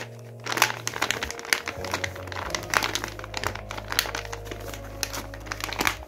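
Paper blind bag crinkling and rustling in short, irregular bursts as hands squeeze and rub it, over background music with steady low notes.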